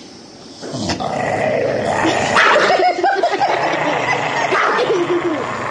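A dog growling, starting just under a second in, breaking into higher-pitched wavering yips and whines through the middle.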